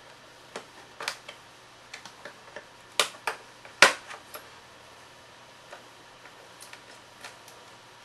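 Plastic memory access hatch on an HP 550 laptop's underside clicked and knocked into place, then its screw turned with a small Phillips screwdriver: a string of sharp clicks, the loudest about four seconds in, followed by faint ticks.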